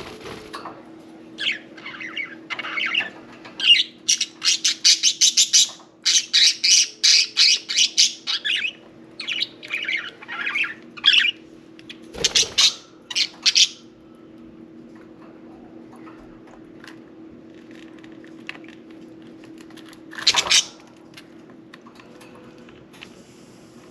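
Pet budgerigars chattering and squawking in short, high, rapid calls, densest in the first half, then a few calls around twelve seconds in and a burst near twenty. A faint steady hum runs underneath.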